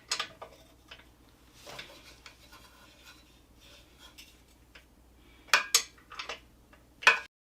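Metal hand tools clinking and scraping while a socket and wrench are worked on the motorcycle's brake caliper mount bolts. There are scattered single clinks, then a quick run of sharp metallic clinks near the end before the sound cuts off abruptly.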